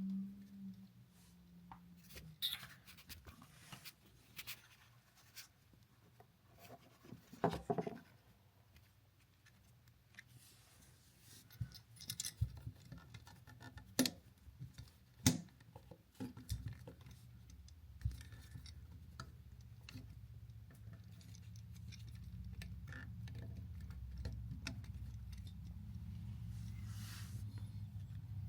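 Scattered small clicks, taps and scrapes of the white neutral wire and a screwdriver being worked onto the terminal screw of a new wall outlet. A low steady hum comes in about halfway through and grows.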